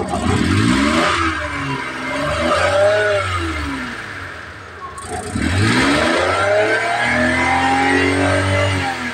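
Multicab engine just started with one crank of its starter, repaired with an improvised bushing, then revved up and let fall back twice in two long swells of pitch.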